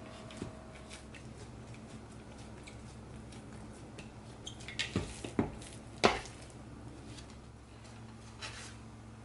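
Kitchen handling sounds while bread dough is being worked: scattered light taps, then a few sharper knocks of bowl and utensils against the work surface, the loudest about six seconds in.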